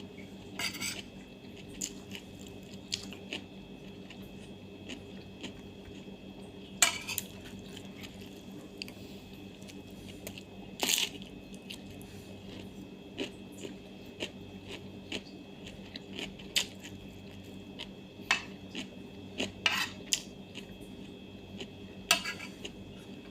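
Cutlery clinking and scraping against a plate during a meal, in scattered short clicks about every one to three seconds, over a steady background hum.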